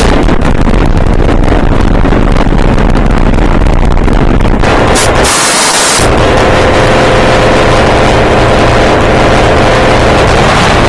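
Very loud, harsh noise across all pitches that starts abruptly, changing in character about five seconds in, with a faint steady tone under it in the second half.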